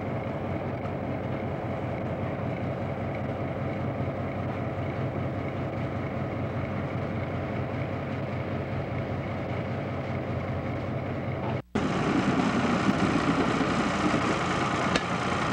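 Diesel locomotive engine idling, a steady low hum. About twelve seconds in, the sound drops out for an instant, then gives way to a louder, rougher engine and machinery noise.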